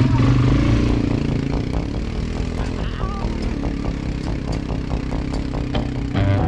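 ATV engine running steadily while the quad is ridden along a rough jungle track.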